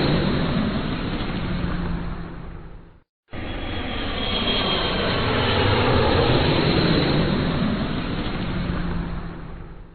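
Airplane engine noise, a steady rushing with a faint high whine. It fades out about three seconds in, stops briefly, then cuts back in suddenly and fades out again near the end: a short sound-effect clip playing on a loop.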